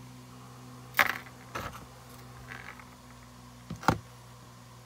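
A few sharp light clicks and taps from handling a small gold chain necklace and pendant, loudest about a second in and as a quick pair near the end, over a low steady hum.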